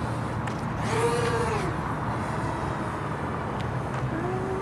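Four brushless motors and propellers of a 280 mm FPV racing quadcopter whining in flight, the pitch swelling up and back down twice as the throttle is pushed and let off, over a steady outdoor hiss.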